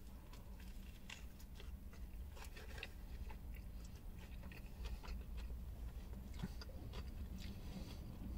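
A person biting into a Big Mac and chewing it with the mouth close to the microphone: faint moist crunching of lettuce and bun with many small, irregular mouth clicks, over a low steady hum.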